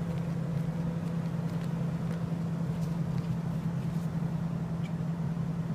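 Small remote-control toy helicopter's electric motor and rotor running with a steady hum.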